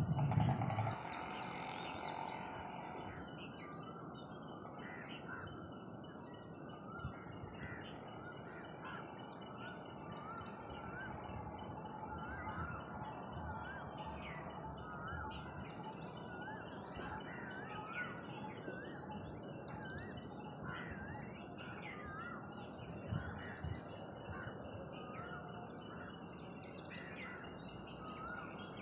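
Dawn chorus of many small birds chirping over a steady background hiss, one bird repeating a short rising note about once a second from about halfway on. A low rumble fades out in the first second.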